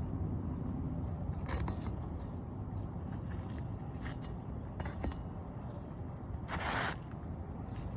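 Roofing work: a few light clinks and, near the end, a brief louder scrape as shingles and tools are handled on an asphalt shingle roof, over a steady low rumble.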